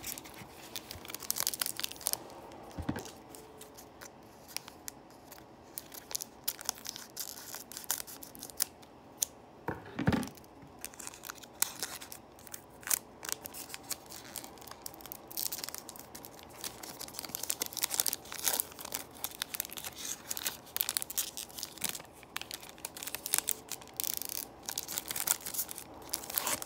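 Foil wrapper of a Panini Score football card pack crinkling in the hands and being torn open, a stream of irregular crackles, with a louder thump about ten seconds in.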